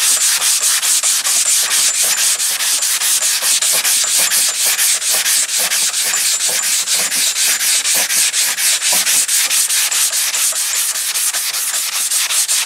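320-grit wet sandpaper wrapped on a hand sanding block, scrubbed in quick, even back-and-forth strokes, several a second, over a soapy-wet epoxy-primed car body panel. This is block sanding a guide coat to show the low spots.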